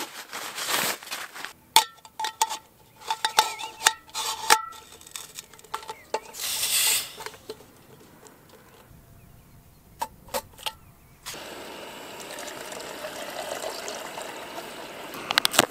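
Camp cooking gear handled by hand: clinks and knocks of a metal pot and stove parts, some with a short ring. Over the last four seconds or so, a steady stream of water pours into a Fastboil stove's cooking pot.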